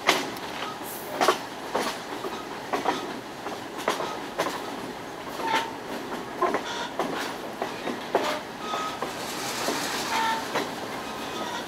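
A moving passenger train heard from on board: wheels clicking and knocking over the rail joints at uneven intervals over a steady running rumble, with a few brief high squeaks now and then.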